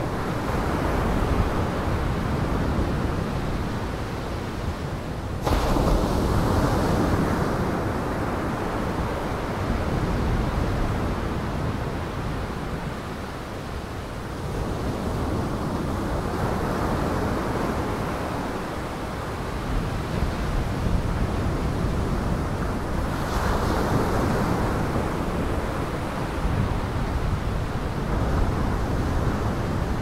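Heavy storm surf on the Lake Michigan shore: waves breaking and washing in, swelling louder every several seconds, with wind.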